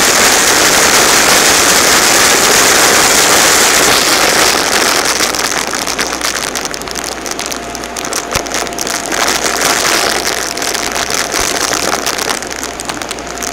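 Shark DuoClean Lift-Away upright vacuum running over a laminate floor and sucking up glitter confetti. About four and a half seconds in, the steady rush drops a little and fills with rapid ticks and crackles of confetti being picked up, with a faint steady whine underneath.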